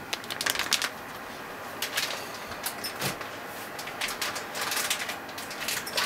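Plastic bag of potato starch crinkling and rustling in uneven spells as it is tipped over the bowl and handled, with scattered light clicks.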